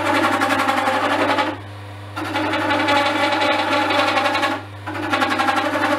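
Axminster Craft wood lathe humming steadily while a turning tool cuts a spinning pen blank of hard, slightly damp olivewood, a rasping cut in three passes with short pauses between them as the tool is lifted and moved along.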